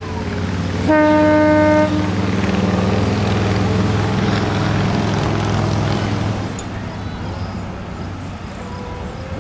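A locomotive horn sounds once, a single held note lasting about a second, over a steady low engine rumble that fades about six and a half seconds in.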